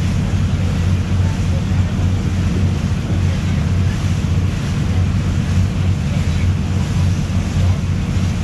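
Steady low rumble on board a moving boat: engine drone and wind buffeting the microphone, with choppy water splashing along the hull.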